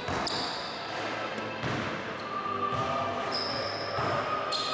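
Basketballs bouncing on a hardwood gym floor, several irregular thuds, with a few short high squeaks of sneakers on the floor.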